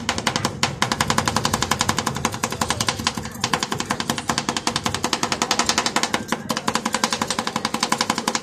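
Two metal spatulas rapidly chopping ice cream mixture on a chilled steel rolled-ice-cream plate: a fast metallic clatter of about ten strikes a second, with brief pauses about three and six seconds in.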